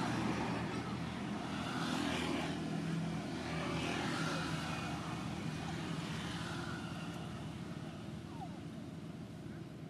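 A motor engine running, heard as a steady low hum. A rushing noise swells twice in the first half and then slowly fades away.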